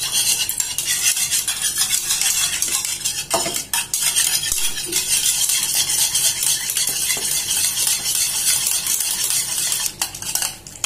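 A wire whisk beating a raw egg in a bowl: a fast, continuous clatter of the wires against the bowl, with a short break near the end.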